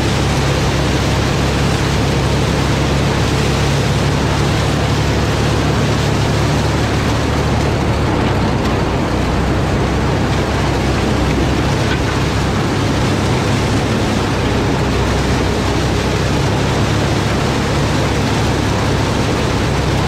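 John Deere 4020's six-cylinder diesel running steadily under load, driving a two-row New Idea corn picker through standing corn. A dense, even machine noise over a constant low engine drone.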